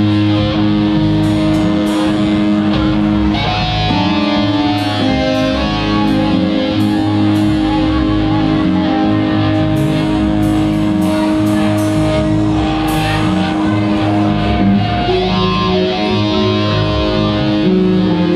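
Rock band playing, led by electric guitar holding sustained notes, with a run of sharp hits from about one second in until near the middle.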